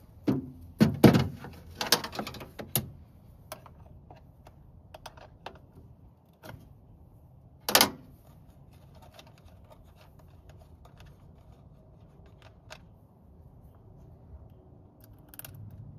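Crimping tool clicking and clacking as a ring terminal is crimped onto a wire, several quick clicks in the first few seconds, then scattered small ticks of wire handling and one sharper click near the middle.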